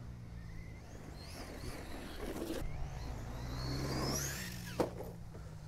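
Brushless electric motor of a Remo Hobby EVO-R 1/8 RC truggy whining at a distance, rising and falling in pitch as the truggy accelerates and slows, with a single knock about five seconds in.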